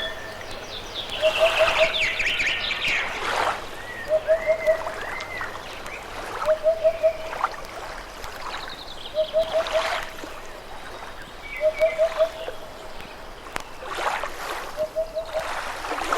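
River water running and splashing, with birdsong over it: one bird repeats a low call of three or four quick notes about every two and a half seconds, and other birds chirp and whistle higher up.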